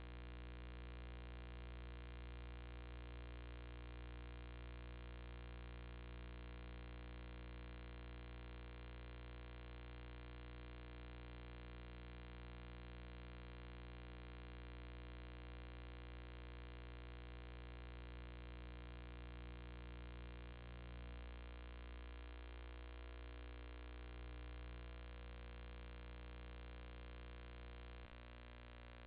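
Steady, faint electrical mains hum: a low buzz with many overtones that holds unchanged and dips slightly just before the end.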